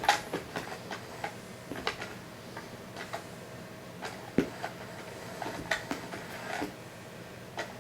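Battery-operated cat toy running with a faint steady hum, with irregular light clicks and knocks as it moves and is batted at.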